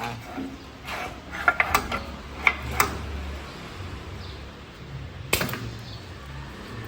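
Metal clicks and knocks from an aluminium copy router being handled and set up, with a strong knock about five seconds in, over a low machine hum.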